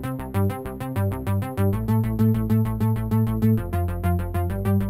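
Synthesizer background music with a steady beat.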